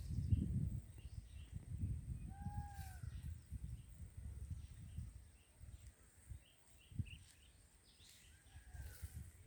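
Birds calling: a few short, arched whistled notes and scattered high chirps over a low rumble, with one sharp click about seven seconds in.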